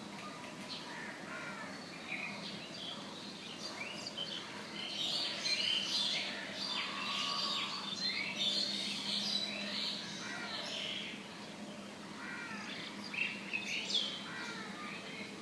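Several birds chirping and singing at once, with short overlapping calls and sweeping notes, busiest in the middle. A low steady hum runs underneath.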